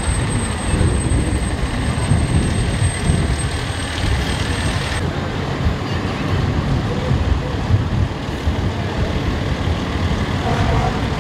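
Fire trucks' diesel engines rumbling low and steady as they drive slowly past, with people talking in the background. A thin, high, steady whine cuts off about five seconds in.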